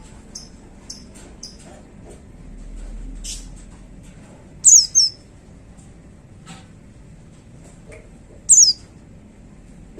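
White-eye (pleci) calling: soft, short, very high chirps, then a pair of loud, sharp notes sweeping downward about halfway through and another near the end.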